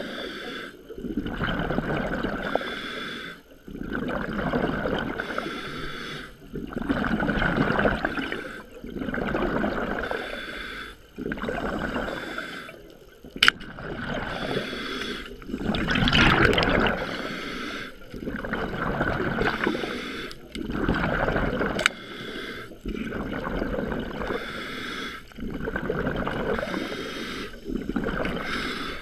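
Scuba regulator breathing heard underwater: slow, regular cycles of the demand valve's hiss on each inhale alternating with a rush of exhaled bubbles. Two sharp clicks stand out, about halfway through and about three-quarters through.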